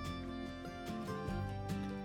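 Background music: plucked guitar and fiddle in a country or bluegrass style with a steady beat.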